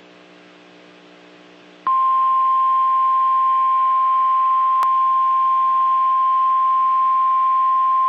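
A faint electrical hum for about two seconds, then the NOAA Weather Radio warning alarm tone starts: a single steady 1050 Hz tone over radio receiver hiss, with a brief click about five seconds in.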